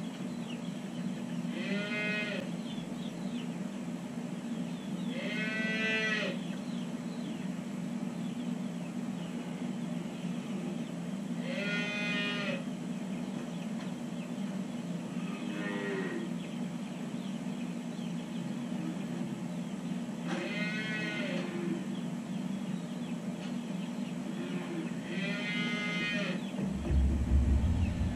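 Dairy calves mooing: six separate calls of about a second each, a few seconds apart, over a steady low hum. A low rumble comes in about a second before the end.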